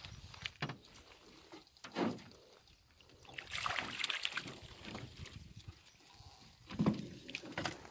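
Water splashing as fish thrash in a fishing net beside the boat, loudest about three and a half to four and a half seconds in. A couple of dull knocks come about two seconds in and near the end.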